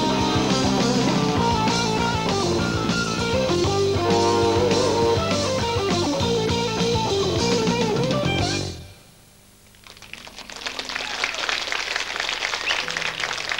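Live rock band with lead electric guitar, bass and drums playing the last bars of a song, stopping sharply about nine seconds in. After a brief pause, the audience starts applauding.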